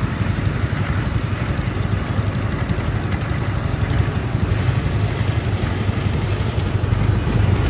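Engine of a rice combine harvester running steadily, with a fast low throb.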